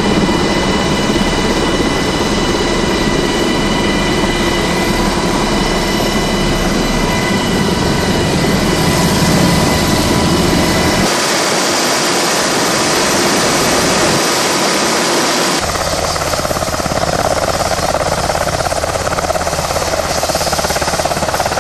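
Coast Guard Jayhawk helicopter running: steady loud engine whine and rotor noise, heard from inside the cabin. The sound changes abruptly about eleven seconds in and again about sixteen seconds in.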